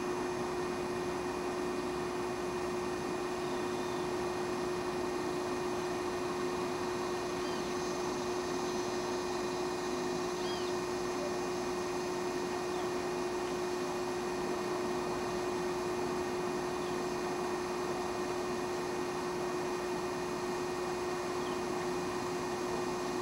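Steady hum: a constant low tone with a few fainter higher tones over an even hiss, unchanging throughout, with a few faint short high chirps here and there.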